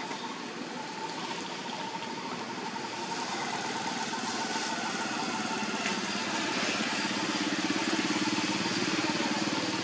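A motor engine running steadily, growing somewhat louder towards the end.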